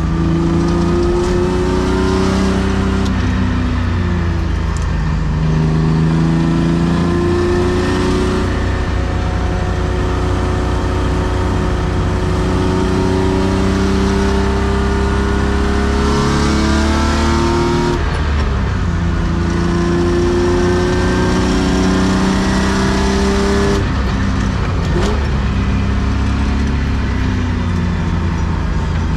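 1993 BMW E36 325i's M50B25 straight-six, breathing through aftermarket headers and a sport exhaust, pulling hard from inside the cabin. The engine note climbs steadily in pitch and drops sharply three times: near the start, about two-thirds of the way through and again near the end.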